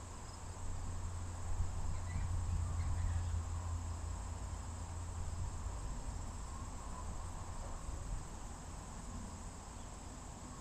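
Steady high chirring of insects, with a low rumble underneath that swells over the first few seconds and then slowly fades.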